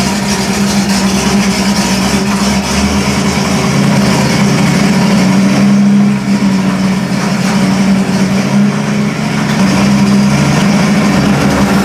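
1955 Buick 322 Nailhead V8 engine running steadily at a fast idle, sounding pretty good.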